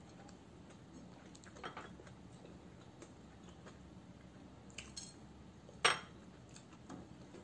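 Light clicks and taps of fingers against a ceramic plate while eating dried fish and rice by hand, with one sharper clink about six seconds in.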